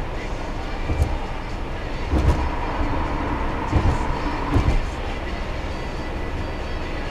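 Road noise inside a moving car: a steady low tyre-and-road rumble. Several short thumps come through it, one about a second in and a cluster between two and five seconds in.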